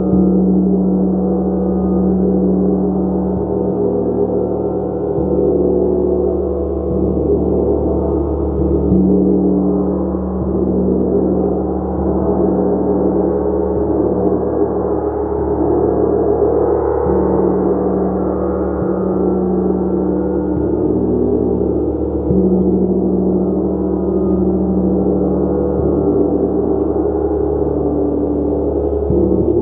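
Gong played continuously in a sustained, shimmering wash of many overlapping ringing tones. A strong low tone swells and fades every few seconds as it is struck again.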